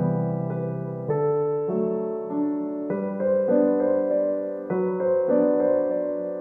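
Background piano music, one chord after another, the notes changing about every half second to second.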